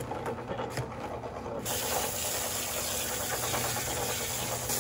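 Garden hose spray nozzle switched on about a second and a half in, giving a steady hiss of water spraying into a cement mixer's drum.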